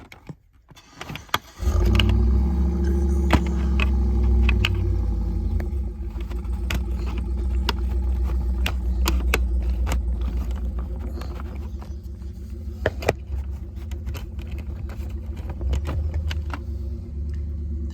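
A steady low rumble with a hum, like an engine running, starts suddenly about two seconds in. Sharp plastic clicks and rattles are scattered across it as the car's dash trim and AC control panel are pried loose with a flat screwdriver.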